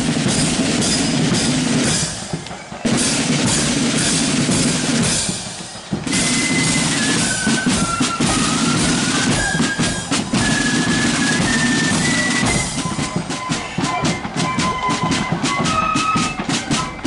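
Marching flute band: side drums and bass drum playing rolls and beats, with two brief breaks in the first six seconds. About six seconds in, the flutes come in with a melody over the drums.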